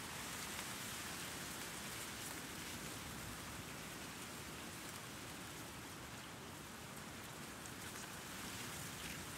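Soft, steady outdoor breeze with very light city noise under it.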